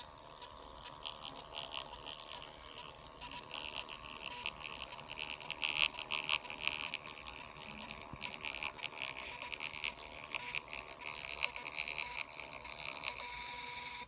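Testo thermal printer printing a combustion-analysis receipt: a rapid stuttering buzz from the print head and paper feed that surges and eases as the lines go out, and cuts off abruptly at the end.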